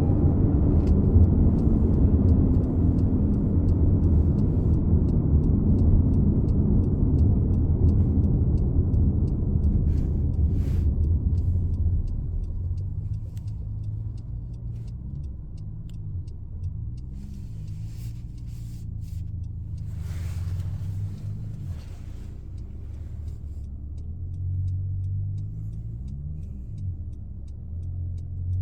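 2015 Honda CR-V running with a loud low humming drone, the noise its owner hears coming from the back of the car. About twelve seconds in the drone drops to a quieter level, and its pitch then rises and falls.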